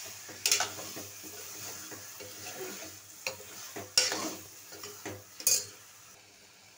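Raw chicken pieces being stirred with a ladle in an aluminium pressure cooker, sizzling in oil with onion and ginger-garlic paste and cooking in their own moisture with no water added. The ladle scrapes and knocks against the pot, most sharply three times: about half a second in, at about four seconds and at about five and a half seconds. The sizzle fades near the end.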